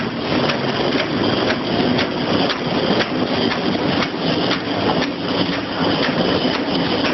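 Electric bakso (meatball) forming machine running steadily, with a regular click about twice a second over its motor and mechanism noise.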